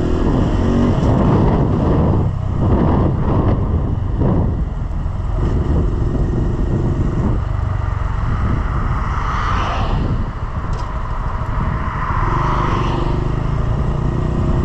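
A small single-cylinder Honda motorcycle's engine running under way in slow traffic. Its note comes and goes with the throttle under a steady rush of wind on the microphone.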